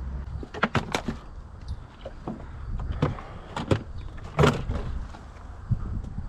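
A low hum that stops just after the start, then half a dozen sharp knocks and clatters at uneven spacing, the loudest about four and a half seconds in.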